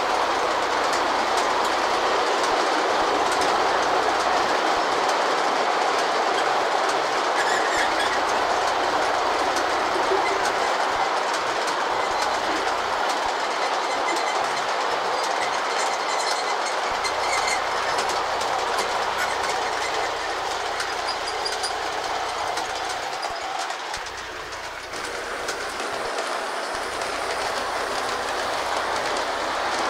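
G-scale model freight train rolling past on track: a steady rumble of wheels with light clicking, briefly quieter about 24 seconds in.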